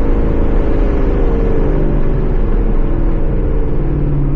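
Ford Coyote 5.0 V8 of a 2017 Mustang GT running through a Corsa Xtreme cat-back exhaust; the engine note sinks gradually in pitch for about three seconds as the revs fall, then holds steady.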